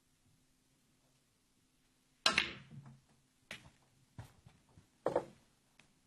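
Snooker balls clacking: a sharp, loud click from the shot about two seconds in, then a few fainter clicks and another clack about five seconds in.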